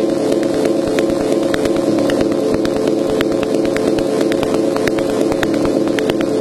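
Electronic synthesizer drone: several low-middle tones held steady, with irregular sharp clicks scattered over them.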